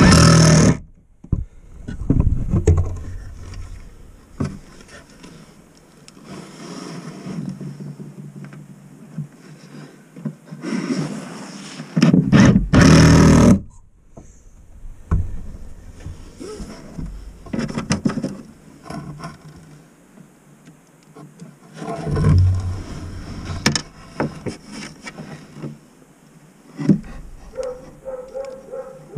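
Handling noise from the recording device's microphone: irregular rubbing, scraping and bumping against a hand or clothing, with the loudest scrapes right at the start and again about twelve to fourteen seconds in.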